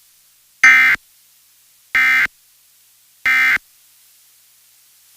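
Emergency Alert System end-of-message code: three short identical bursts of digital data tones, about a second and a half apart, signalling the end of the alert test.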